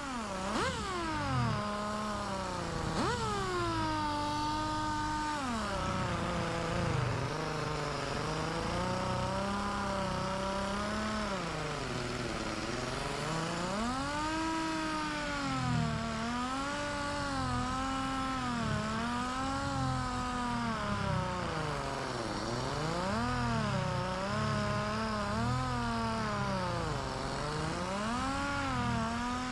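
Corded palm sander wet sanding automotive clear coat with a 2000-grit disc, its motor whining steadily. The pitch keeps rising and falling as the sander is worked over the wet panel.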